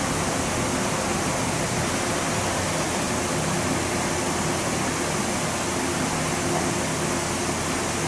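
Pedestal electric fan running close by: a steady rush of air with a low, even motor hum underneath.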